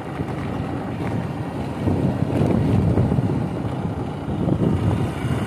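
Wind rushing and buffeting over the microphone of a moving scooter, a steady low rumble that swells and dips, with the scooter's road and running noise underneath.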